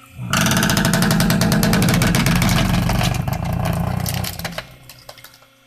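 Hydraulic log splitter running hard under load as it drives through a log: a loud engine-and-pump sound with a fast steady pulse that starts abruptly and eases off after about four seconds.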